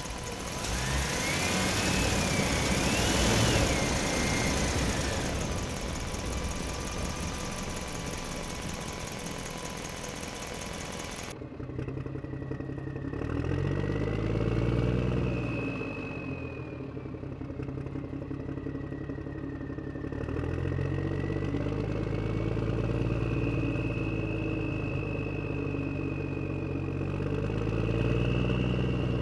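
Radio-controlled toy construction machines working: the whine of their electric motors and gears rises and falls in pitch as they move. The sound changes abruptly about eleven seconds in, after which lower engine-like tones swell and fade along with the whine.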